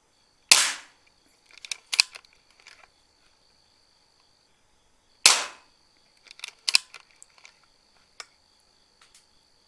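Two shots from a PCP air rifle about five seconds apart, each a sharp crack. Each shot is followed about a second later by a short run of clicks and knocks.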